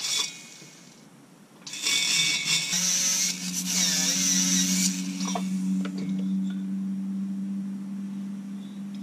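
Slow-speed right-angle handpiece with a small burr grinding the port of a Husqvarna 394XP chainsaw cylinder. A high, hissing grind runs from about two seconds in to five, and the tool's steady hum carries on after the grinding eases.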